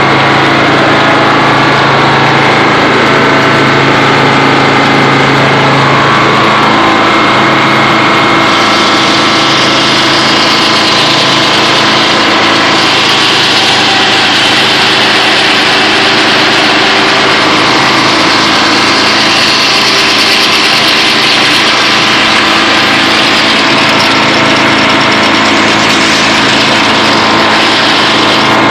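Frick circular sawmill running steadily under a Detroit Diesel engine. About eight seconds in, a loud high hiss joins as the circular blade goes into the cut through an oak log, and it keeps on nearly to the end.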